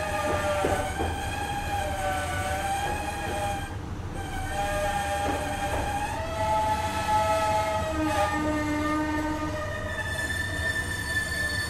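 Meitetsu 6800 series electric train car running, a steady rumble of wheels on rail with wheel squeal in several high tones that waver up and down throughout, and a few faint knocks near the start.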